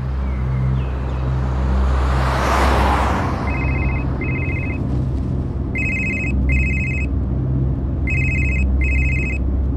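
Mobile phone ringing: pairs of short trilling electronic beeps, three pairs starting about three and a half seconds in, over a low steady rumble, with a swelling whoosh just before the ringing begins.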